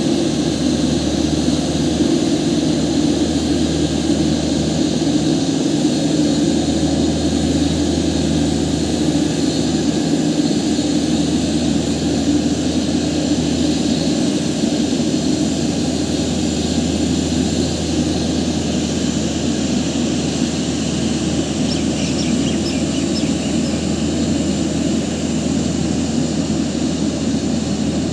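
Airbus A319 airliner's jet engines running steadily on the ground, a constant low rumble with a thin whine above it.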